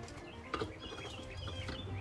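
Birds chirping in the background, a few short high wavering calls in the second half, over a steady low hum, with a brief click about half a second in.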